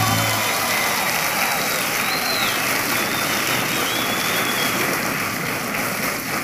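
Studio audience applauding and cheering, a steady wash of clapping with a few short whistles.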